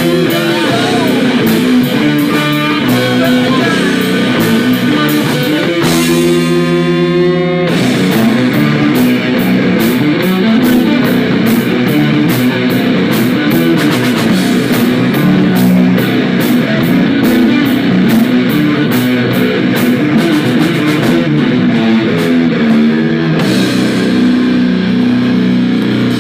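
Live rock band playing: electric guitars over a pounding drum kit. About six seconds in the drums drop out and a single held guitar chord rings for a second or two, then the full band crashes back in.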